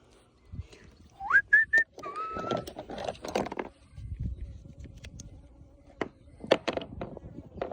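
A few short whistled notes: a rising glide into two quick high notes, then one held slightly lower note. Later come a few sharp knocks of gear being handled.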